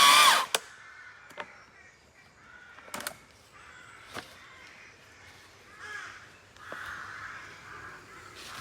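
An electric chainsaw's whine cuts off right at the start. Then come a few scattered sharp knocks, and harsh bird calls in the second half.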